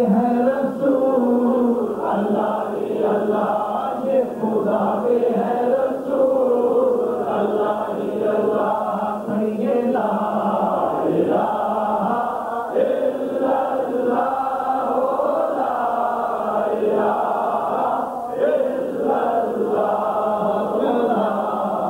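A male naat reciter singing a devotional naat without instruments, in long drawn-out melodic phrases over a steady low drone.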